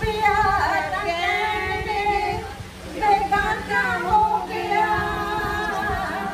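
A woman singing into a microphone with no instruments, in two long phrases of held notes with a short pause near the middle.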